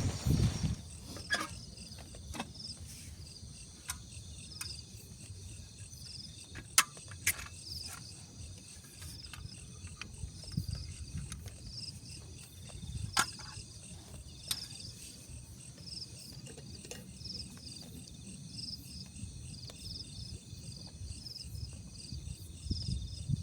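Insects chirping in high-pitched trills and repeating chirps at an outdoor campsite, with a low rumble underneath. Several sharp clicks or knocks cut in, mostly in the first half and once more about 13 seconds in.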